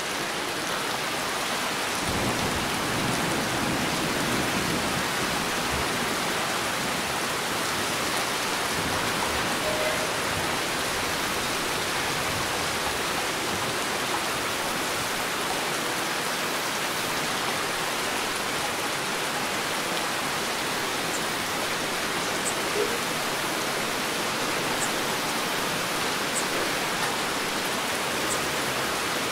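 Heavy rain falling steadily in a dense, even hiss, with a low rumble for a couple of seconds shortly after the start.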